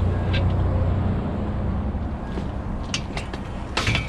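Pickup truck engine running with a steady low hum that drops away about a second in. A few sharp clicks follow, then a louder clatter of knocks near the end.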